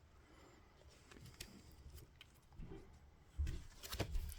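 Quiet handling of a vinyl LP and its sleeve: a few faint clicks, then a soft bump and a sharper knock near the end.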